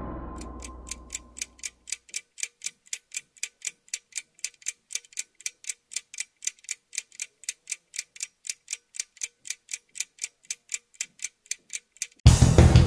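A steady clock-like ticking, about four even ticks a second. Before it, the tail of a music sting fades out over the first two seconds, and near the end loud music cuts in sharply.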